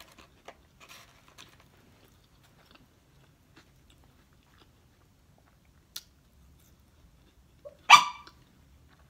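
Faint chewing and small mouth clicks of someone eating fries, then a single sharp dog bark about eight seconds in.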